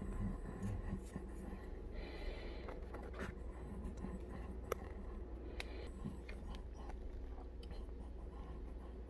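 Faint scratching and scattered small clicks over a steady low hum, with a brief hiss about two seconds in: handling noise from a phone held close against skin.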